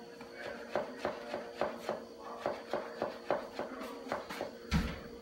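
Wide-bladed knife chopping green herbs on a cutting board, a quick run of short knocks about three to four a second, with a duller thump near the end.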